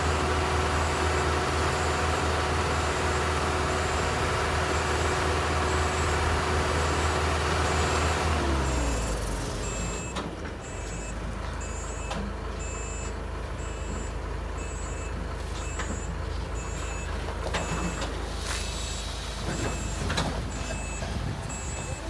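Heavy diesel engine running with a steady hum that drops in pitch and level about eight and a half seconds in. Then a truck's reversing alarm beeps steadily, over a minute of idling diesel, as the flatbed truck backs up toward the loading bank, with a few short sharp clunks or hisses near the end.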